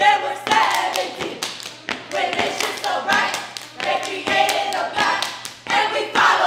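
A group of women chanting in unison over sharp stomps and hand claps, about two beats a second, as in a sorority stepping routine.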